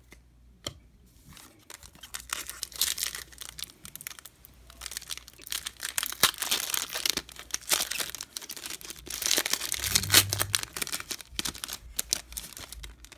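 Wrapper of a baseball trading-card pack crinkling and tearing as it is opened by hand, with irregular crackles that come and go from about two seconds in until near the end.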